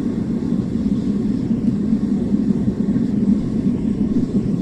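Gas-fired, blower-fed metal-melting furnace burning at full heat, its burner and fan giving a steady, low rushing noise.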